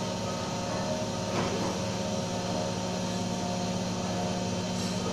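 Plastic injection molding machine running with a steady hum of several held tones, and one brief louder sound about a second and a half in.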